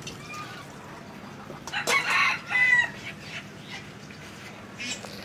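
A chicken clucking and squawking: two loud calls about two seconds in, with fainter bird chirps before them.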